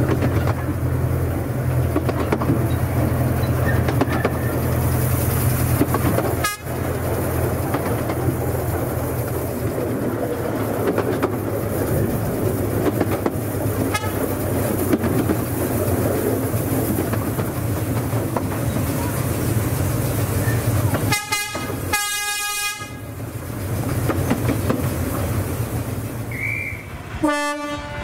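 Train running with a steady low rumble and wheel clatter on the rails. About 21 seconds in, its horn sounds two short blasts, and another brief horn note comes near the end.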